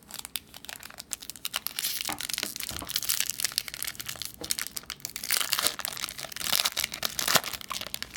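Plastic wrapper of a baseball card pack crinkling and tearing as it is ripped open and handled, a dense crackle that starts abruptly and goes on for several seconds.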